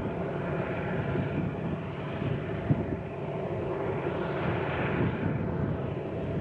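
Union Pacific freight train rolling past, a steady rumble that gently swells and fades.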